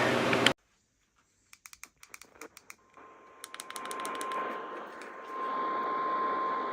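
A scatter of sharp clicks, then radio hiss with one steady high tone held for about four seconds, with another quick run of clicks as the tone begins.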